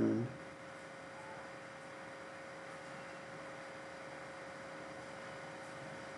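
Faint steady electrical hum, one constant tone over a light hiss: the background noise of the recording while nothing else sounds.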